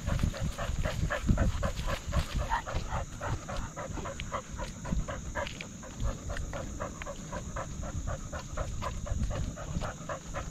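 A dog panting fast and evenly while running, about four breaths a second, close to the microphone of a camera strapped to its harness, over a low rumble of jostling and footfalls.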